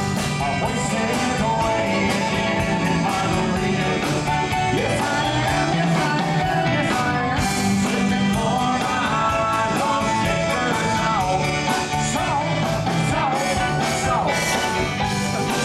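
Live band playing amplified rock and roll through the stage speakers: electric guitars over a drum kit, with a steady beat and bending guitar notes.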